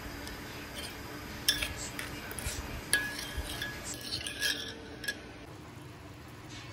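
Metal spoon stirring broth in a pot, clinking sharply against the pot a few times.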